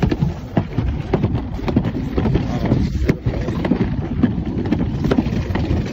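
Alpine slide sled running fast down the track: a steady low rumble with many quick clattering knocks, and wind buffeting the microphone.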